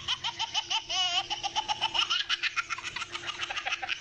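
A toddler laughing hard in a long run of quick, high-pitched giggles, about seven a second, with a wavering squeal about a second in.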